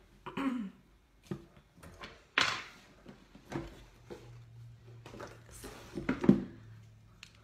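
Scattered knocks, clicks and rustles of makeup items being moved about during a search for a mascara tube. A short hum of the voice comes about half a second in, and a louder short throat sound near the end.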